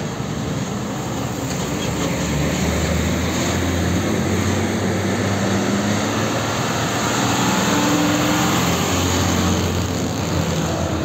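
Heavy tanker truck's diesel engine running as it pulls out and drives past, with a steady low drone over tyre and traffic noise; it grows louder as the truck approaches and eases off as it goes by.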